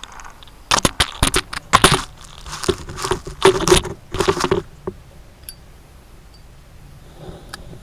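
Handling noise right at the camera: an irregular run of rustling, scraping and clicking for a few seconds, then only a couple of faint ticks.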